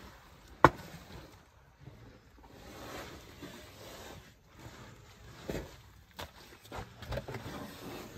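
Wet mud squelching and thudding as an African elephant digs and shifts about in a mud wallow, in irregular soft bursts that cluster near the end. A single sharp knock sounds about half a second in.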